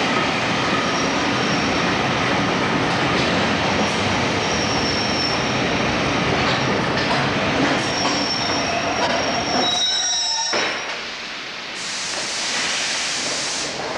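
Class 504 electric multiple unit running into a station platform and braking: steady wheel rumble with thin high-pitched wheel and brake squeal, dying away as the train comes to a stand about ten and a half seconds in. A steady hiss of air starts about two seconds later.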